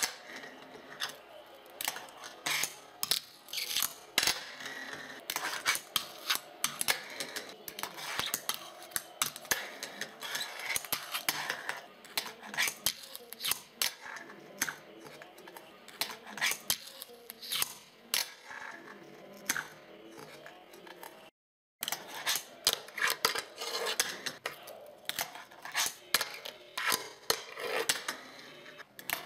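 Fingerboard tricks on tabletop ledges: a rapid run of sharp clacks as the board's deck and trucks pop and land on the ledge, with short scrapes of grinds between them. It breaks off for a moment about two-thirds of the way through, then the clacking resumes.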